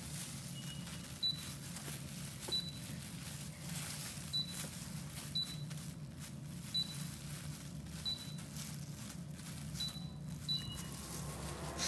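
Induction cooktop's touch controls beeping, about ten short high beeps spaced irregularly, as the hob is switched on and its setting adjusted, over a steady low hum.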